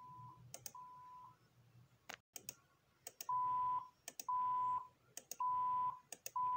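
Censor bleeps over swearing: a string of steady, single-pitched beeps about half a second each. Two faint ones open, then four louder ones follow about one a second from halfway through, with short clicks between them.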